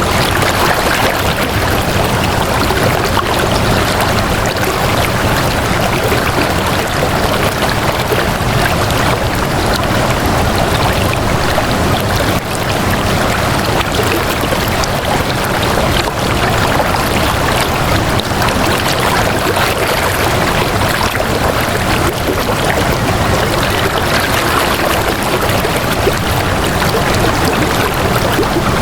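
Flowing water, a steady even stream sound without breaks or changes.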